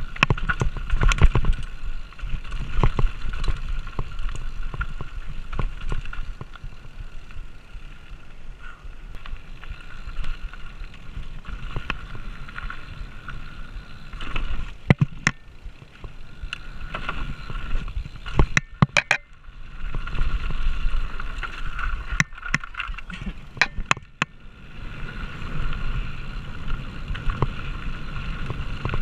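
2020 Polygon Siskiu D7 mountain bike descending a rocky downhill trail: tyres rolling over dirt and rock, the bike rattling over rough ground with sharp clicks and knocks from impacts, clustered about fifteen seconds in and again a few seconds later, over a steady high hum.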